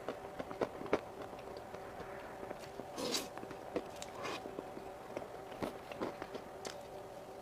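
Close-up eating sounds from whipped cream cake: scattered short clicks and wet mouth sounds, with a longer smacking burst about three seconds in, over a faint steady hum.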